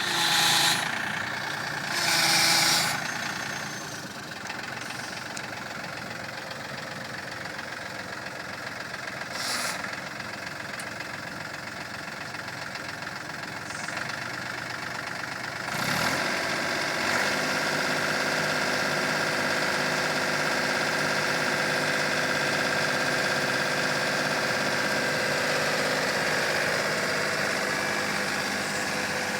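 Yanmar diesel engine of a Cub Cadet garden tractor running, with a transmission the owner says is messed up. Two short loud bursts of noise come in the first three seconds; about halfway through, the sound grows louder and a steady high whine joins the engine and holds.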